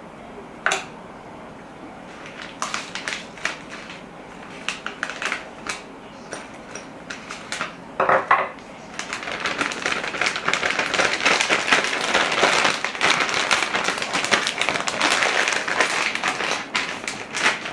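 Hands working food and kitchenware: scattered clicks and taps, then from about nine seconds in a dense, continuous crackling rustle.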